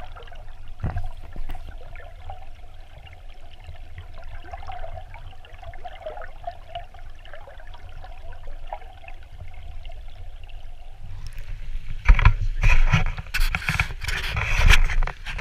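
Stream water heard through a submerged camera housing: a steady, muffled rush. About twelve seconds in, loud knocks and rushing of handling and water as the camera is lifted out of the stream.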